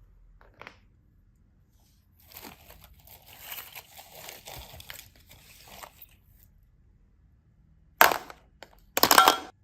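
Crinkling and rustling of something being handled for a few seconds, then two short, loud crinkling bursts about a second apart.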